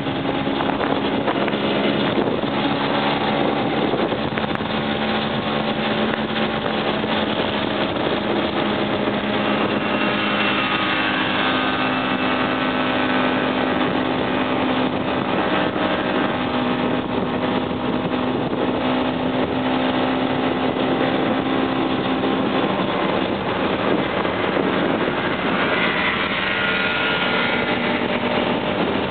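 Vintage two-stroke motor scooter engine running steadily while riding, its pitch drifting up and down a few times with the throttle.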